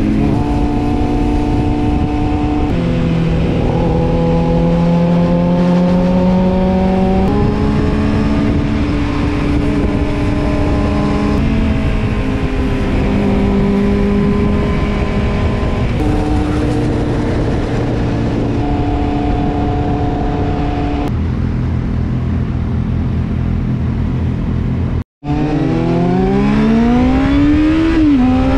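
Kawasaki Z750 inline-four engine under way, heard from the rider's seat with wind rush. Its note holds fairly steady and steps up and down several times with throttle and gear changes. About 25 seconds in the sound cuts out for a moment, then the engine pitch climbs steadily as the bike accelerates.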